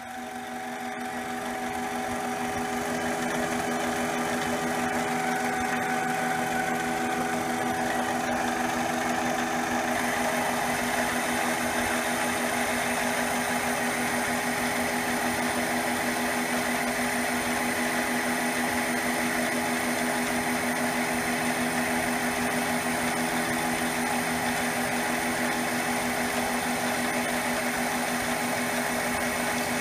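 Mini lathe spindle and drive running with a steady whine, getting louder over the first few seconds. About ten seconds in, the sound thickens as a two-flute end mill, used as a drill and boring bar, starts cutting into the spinning aluminum part.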